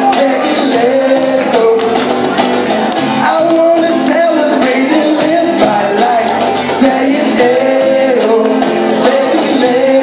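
A live band playing: a held, bending lead melody into a handheld microphone over guitar and cajon, with a steady percussive beat, heard from within the audience in a large hall.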